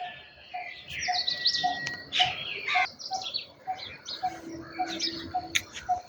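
Many birds chirping together in a dawn chorus, with overlapping short chirps and trills. Through it runs a short low note repeated steadily about twice a second.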